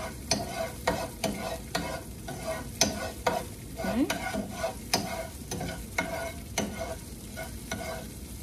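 A metal spoon stirring and scraping across a skillet in short, uneven strokes, about two a second, over the sizzle of a diced chipotle pepper sautéing in vegetable oil.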